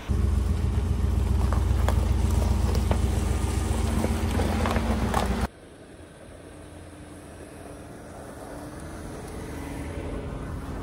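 Pickup truck engine running close and loud, with a few light clicks. It cuts off sharply about five and a half seconds in, replaced by the much quieter sound of the truck driving toward the listener, slowly getting louder.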